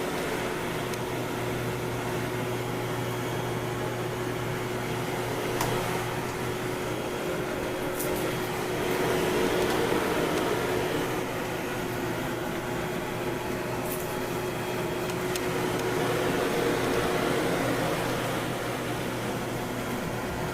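Samsung Motion Sync vacuum cleaner running steadily: a constant motor hum with a steady tone, swelling a little louder twice, about halfway through and again later, with a few faint clicks.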